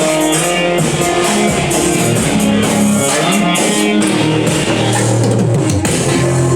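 Rock-style music with guitar and drums.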